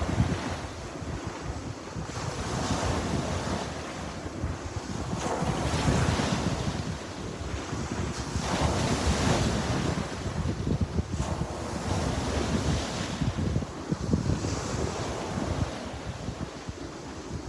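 Sea waves breaking and washing on the shore, swelling and ebbing every three to four seconds, with wind buffeting the microphone.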